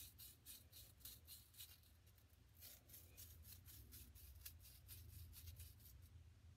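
Faint, quick scraping and scratching, about five strokes a second, as a hard-packed sand ball is dug at by hand to break it open, with a short pause about two seconds in.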